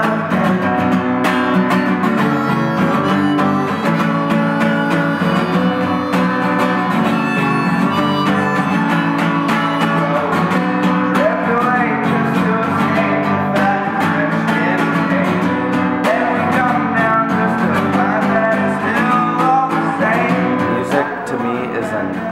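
A steel-string acoustic guitar strummed in a steady rhythm, with a harmonica on a neck rack playing the melody over it: an instrumental break in a folk-rock song.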